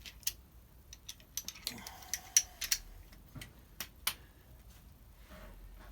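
Scattered sharp metal clicks and taps, the loudest about two and a half seconds in, from handling the motorcycle's engine case and tools as the case is set onto its locating dowels.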